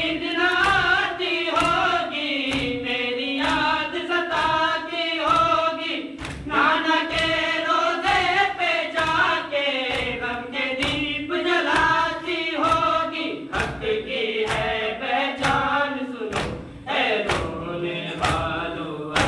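A group of reciters chanting a noha, a Shia lament sung together, kept in time by sharp beats about twice a second, the chest-beating (matam) that goes with noha recitation.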